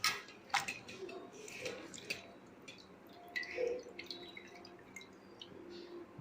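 An irregular series of light clicks and taps from kitchen work, the sharpest right at the start and about half a second in.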